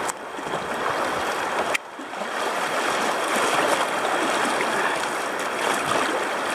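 Shallow river rapids rushing and splashing around a kayak running through them, with a click and a brief drop in level about two seconds in.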